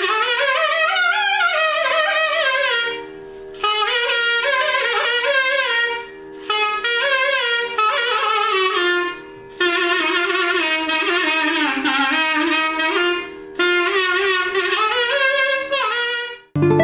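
Background music: a reed wind instrument plays a sliding, ornamented melody in phrases a few seconds long over a steady held drone. Near the end it cuts suddenly to strummed acoustic guitar music.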